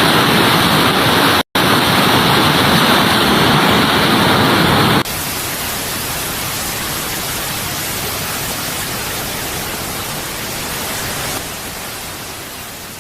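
Loud, steady rushing of floodwater, with a very brief dropout at about one and a half seconds. About five seconds in it changes to a quieter, hissier rush, which fades away near the end.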